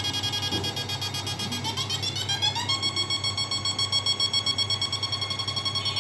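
Electric shock fishing machine's inverter giving out a high, buzzer-like pulsing whine over a low hum. Its pitch rises about two seconds in as the power setting changes, then holds steady.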